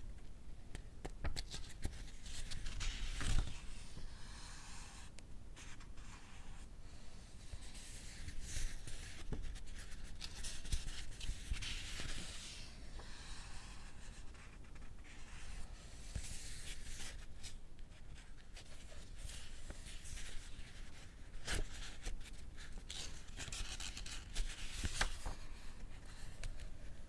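Pages of a paperback book turned one after another, close to a binaural microphone: soft paper swishes every few seconds, with small crisp ticks of the page edges between them.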